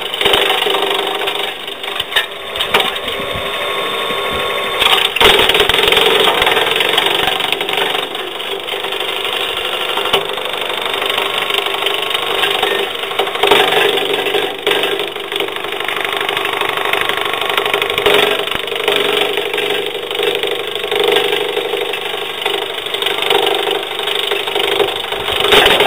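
Electric-motor-driven branch chipper running and chewing up branches fed into its chute, a steady mechanical din broken by irregular cracking and splintering of wood that surges louder as branches are bitten off.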